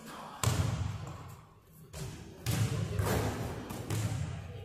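Basketballs bouncing on a hardwood gym floor, several heavy bounces with a long echo of the big hall.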